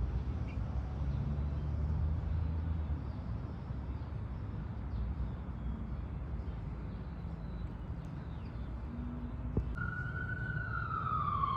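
Low rumble of passing street traffic, then about ten seconds in an emergency-vehicle siren starts up, its pitch sliding downward.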